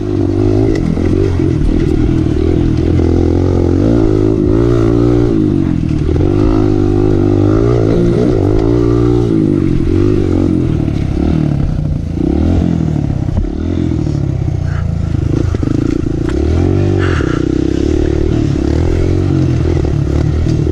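Kawasaki KLX 140L dirt bike's four-stroke single-cylinder engine running under riding load, revs rising and falling again and again with the throttle over rough trail, with some rattling from the bike.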